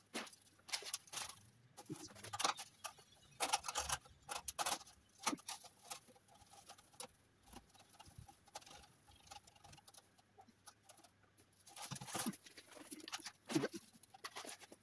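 Wet, runny concrete being scooped from a plastic bucket and scraped into the base of a hollow metal post, in irregular scrapes, slops and light taps. The sounds come in busier stretches with quieter gaps between.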